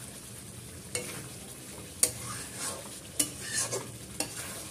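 Flat metal spatula stirring and scraping thick chicken curry in a metal kadai, with four sharp clinks against the pan about a second apart over a soft sizzle. The gravy has been cooked down nearly dry.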